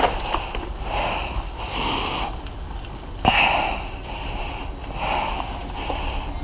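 Heavy breathing close to the microphone, about one breath a second, from an airsoft player on the move. There is a single sharp crack a little over three seconds in.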